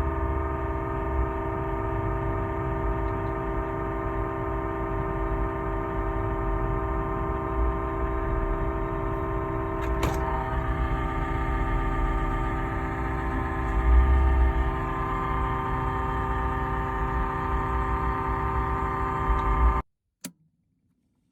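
Camper-van refrigerator compressor running: a steady hum made of several unchanging tones over a low rumble. It cuts off suddenly near the end, followed by a single click.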